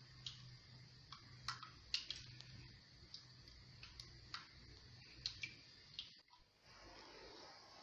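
Thick assida (flour porridge) cooking in a pot, bubbles breaking at the surface in faint, irregular ticking pops over a low steady hum. Bubbles coming through the porridge are the sign that it is cooked.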